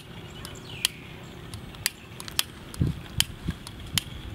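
A long piezo wand lighter being clicked over and over to light charcoal in a clay stove: sharp single clicks about once a second, with a couple of low thuds near the end.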